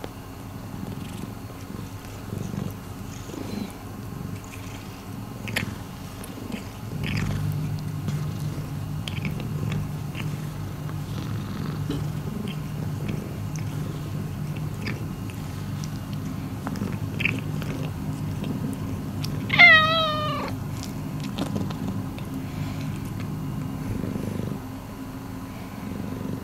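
Long-haired calico cat purring steadily, the low purr growing stronger about a quarter of the way in, with small clicks of licking as she grooms her paw. About two-thirds of the way through comes one short, wavering high cat call, the loudest sound.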